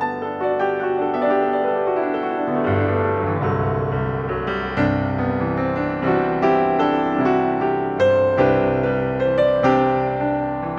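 Piano music: a gentle, flowing piece of struck notes and held chords, playing steadily.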